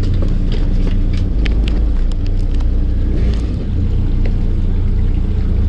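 Fishing boat's engine running with a steady low drone. Light clicks and taps of fishing tackle being handled come through, mostly in the first three seconds.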